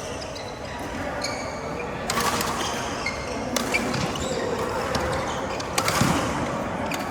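Badminton rally: rackets striking the shuttlecock a few times, with short high squeaks from shoes on the court floor.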